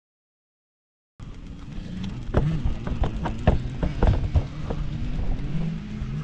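Silence, then about a second in, close camera-handling noise cuts in: knocks, clicks and rubbing as the camera is gripped and adjusted at arm's length. Underneath is a steady low rumble of wind on the microphone, with a low wavering hum.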